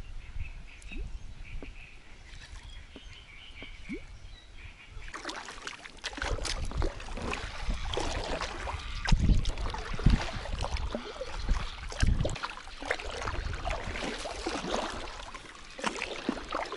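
Varvar-340 inflatable kayak being paddled through weedy, reed-choked shallows: splashing paddle strokes with crackling and rustling as blades and hull push through the vegetation, with a few heavier low thuds. It starts about five seconds in, after a quieter stretch.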